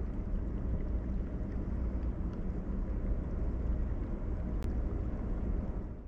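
A boat's engine running steadily, a low hum under a rushing noise of wind and water.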